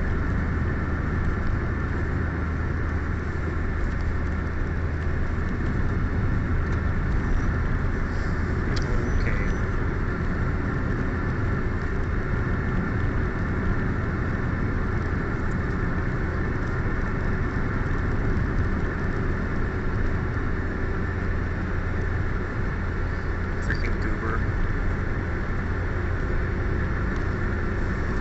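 Steady road and engine noise inside the cabin of a moving car: an even low rumble that holds level throughout.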